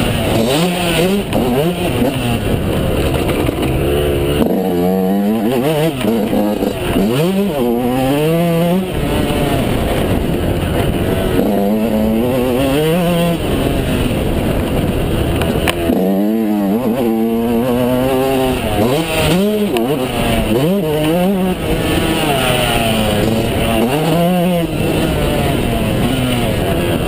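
Yamaha YZ125's 125 cc two-stroke single-cylinder engine, heard close up from on board, revving up and falling back again and again as the rider accelerates, shifts gear and rolls off the throttle.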